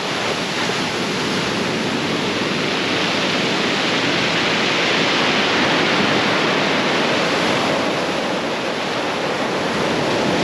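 Heavy ocean surf washing onto the beach in a steady rush, swelling to a peak midway and easing off again: a rough sea with many waves.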